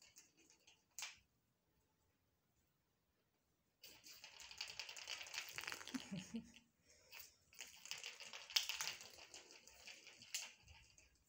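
Rapid clicking and tapping on a hard terrazzo floor: a kitten's claws as it scampers after a small ball. A single click about a second in, a couple of seconds of near silence, then two long runs of quick clatter with a few sharper clicks.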